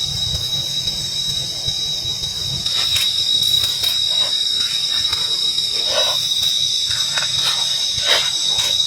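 A steady high-pitched whine with a hiss above it, with short knocks and cracks scattered from about three seconds in.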